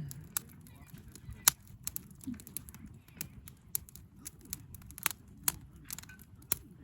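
Wood campfire crackling, with sharp pops at uneven intervals, the loudest about a second and a half in.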